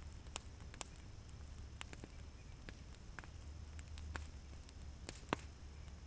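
Small wood fire crackling, with irregular sharp pops a few times a second and one louder pop about five seconds in, over a low rumble of wind on the microphone.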